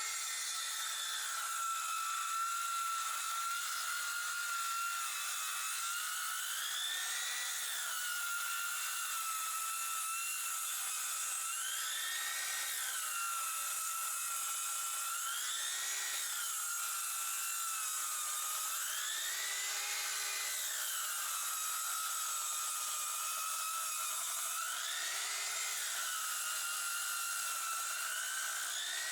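Electric hand planer planing wooden battens. The motor's whine holds steady under load and rises briefly about five times between passes.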